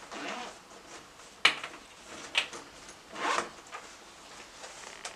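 A sharp knock or click about a second and a half in, a smaller one about a second later, then a brief scraping rustle, with faint ticks between.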